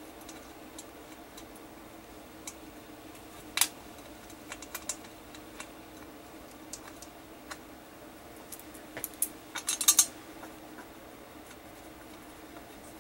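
Scattered light metallic clicks and clinks of bolts and an aluminum transmission oil pan being handled as the pan bolts are started by hand. There is one sharp clink a little over a quarter of the way in and a quick cluster of clinks about three quarters of the way through, over a faint steady hum.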